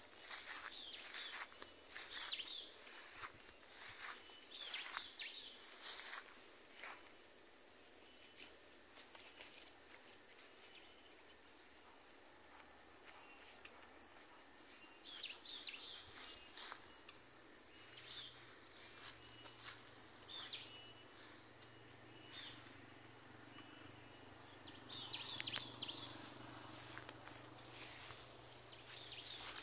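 A steady high-pitched insect drone, with a few short chirps here and there. Footsteps swish through tall grass in the first few seconds and again near the end.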